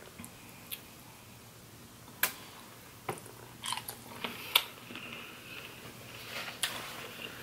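A person eating crab legs and shrimp close to the microphone: chewing and biting with a run of sharp crunches and clicks, the loudest about two seconds in and again about halfway. A faint steady low hum lies underneath.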